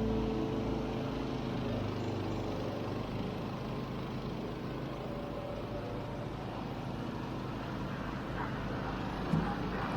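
Home-built zero-turn riding lawn mower's engine running steadily.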